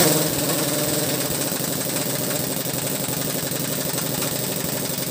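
Air impact wrench running continuously, a rapid steady hammering rattle, as a bolt is worked on a truck's rear axle brake assembly.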